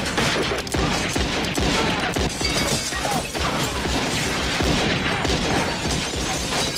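Movie gunfight sound effects: revolver shots fired in quick succession with window glass shattering among them.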